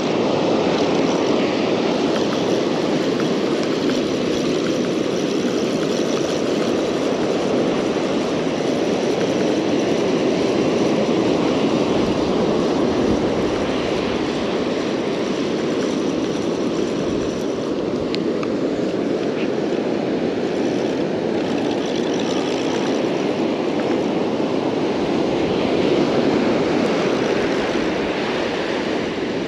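Steady rushing of wind and breaking surf on an open beach, even and unbroken throughout.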